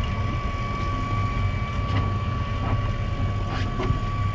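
Boat engine running with a steady low drone, under a constant high-pitched whine and a few faint clicks.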